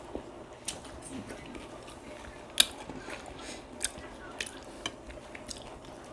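Eating sounds: scattered sharp crunches and clicks of biting and chewing crispy fried pork head, with the loudest crunch about two and a half seconds in.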